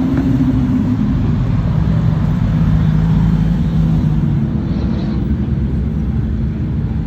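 Cars driving past at low speed, their engines and exhausts running at low revs with a low, steady note that shifts in pitch a few times.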